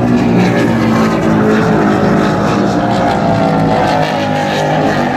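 Super Cat offshore racing catamaran engines running hard at racing speed as the boats race past, a loud, steady drone that wavers slightly in pitch.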